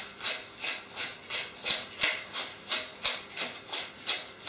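Hand pepper mill grinding black peppercorns, an even run of short grinding strokes about three a second as the top is twisted back and forth.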